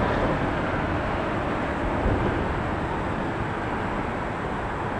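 Steady outdoor rushing noise with a low rumble underneath and no distinct events.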